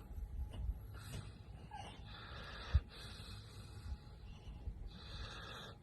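A dog breathing and snuffling in short, breathy bursts, with a soft thump nearly three seconds in.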